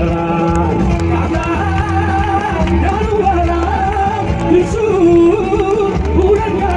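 Amplified singing into a microphone over a backing track with a steady bass line.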